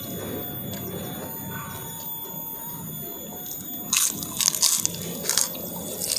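Kerupuk crackers crunching as they are bitten and chewed, with a cluster of sharp, loud crunches about four seconds in over softer chewing.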